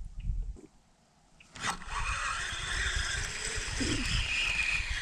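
Spinning reel being cranked: a steady whirring of the reel's gears and line coming in. It starts sharply about a second and a half in and keeps going.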